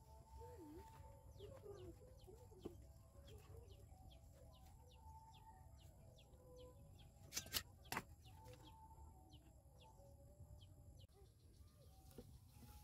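Faint birds chirping over and over, with chickens calling in the background. Two sharp clicks come about seven and a half seconds in.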